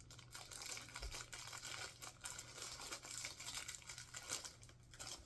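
Packaging crinkling and crackling as hands handle it and rummage through it for Lego pieces, a run of small irregular crackles that dies down near the end.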